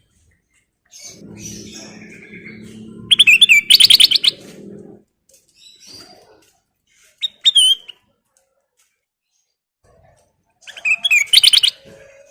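Kutilang emas bulbul singing in loud bursts of rapid, stuttering chirps, about three seconds in, briefly again halfway through, and near the end. A low steady hum sits under the first few seconds.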